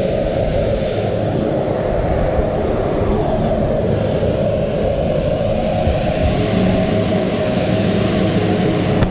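A small single-engine propeller plane's engine running steadily, a loud low drone with a faint steady hum underneath.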